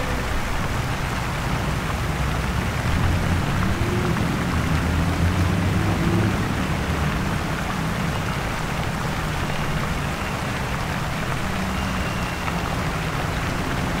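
Busy city street ambience: a steady hiss of traffic noise, with a motor vehicle's engine rumbling past, louder from about three to seven seconds in.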